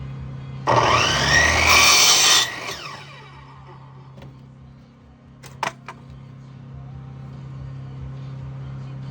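A power saw spins up and cuts through a scrap wood board for about two seconds, its pitch falling away as it winds down. A few sharp knocks follow later, over a steady low hum.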